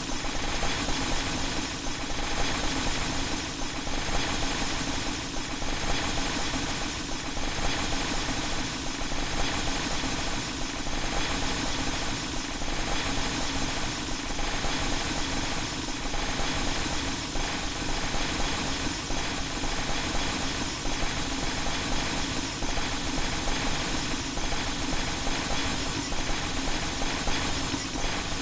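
A glass-breaking sound effect stacked on itself many times over, merging into a loud continuous wall of crashing, hissing noise with a faint pulse about every two seconds.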